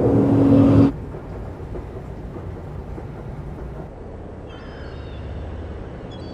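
City traffic noise swelling up loudly and cutting off abruptly about a second in, followed by a quieter low, steady urban rumble with faint high squeaks in the second half.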